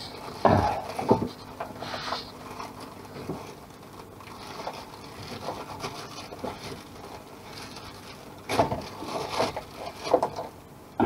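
Plastic packing bag rustling and crinkling as it is handled and opened, with scrapes and light knocks of handling. The loudest bursts come about half a second in and again near the end, where a short knock closes it.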